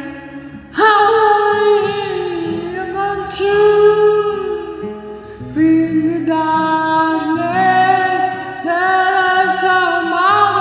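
A solo voice singing a slow pop melody with long held notes over an acoustic karaoke backing track.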